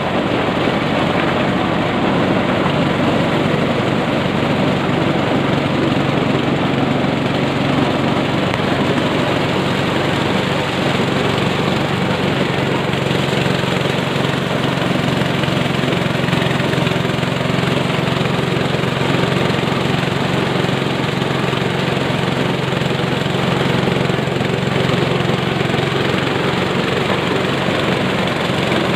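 Engine-driven power corn sheller running steadily while corn is fed through it: a loud, constant engine drone with the noise of the shelling machine, never pausing.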